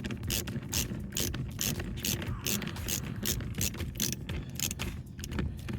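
Ratcheting hand tool with a 7 mm socket clicking quickly and continuously as a screw is backed out.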